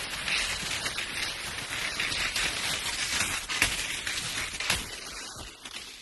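Skis carving and scraping down a snowy slope: a continuous swishing hiss that surges with each turn, with a couple of sharp clicks midway, easing off near the end.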